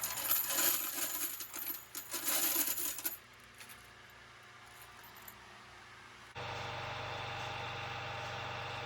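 Metal coins clinking and jingling as handfuls of tokens are poured and handled for about three seconds. After a short pause, a machine starts up about six and a half seconds in with a steady hum.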